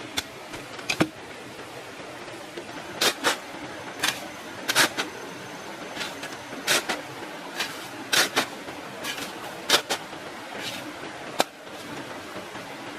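Irregular sharp knocks and scrapes, about fifteen in all and spaced unevenly, over a steady background hiss.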